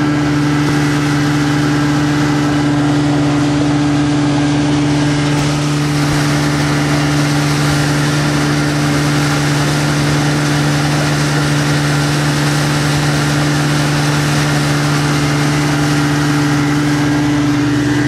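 Motorboat engine running steadily under way, a constant hum over a steady rushing noise, picked up by a camera microphone covered with a fur windscreen.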